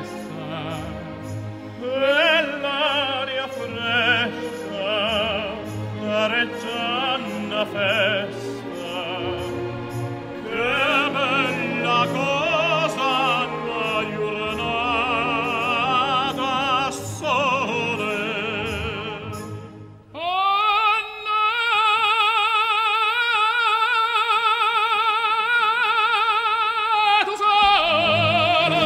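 Operatic singing with orchestral accompaniment. About twenty seconds in, a voice holds one long note with wide vibrato for about seven seconds.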